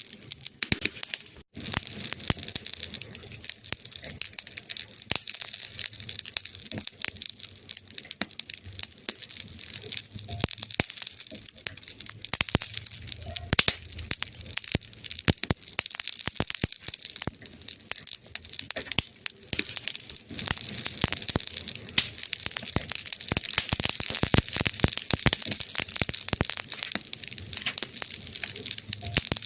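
Campfire burning, with a dense, irregular crackle of sharp pops and snaps over a steady hiss; a few snaps stand out louder than the rest.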